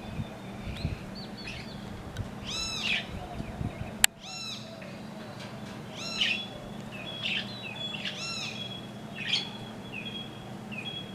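Small birds calling in clusters of quick, arched chirps about every second or two, with thin high whistled notes between them; a single sharp click about four seconds in.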